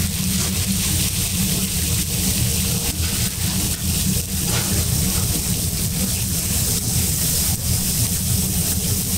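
Steady low roar of a steak stall's cooking station, with a hiss and faint crackle over it from meat sizzling on the griddle.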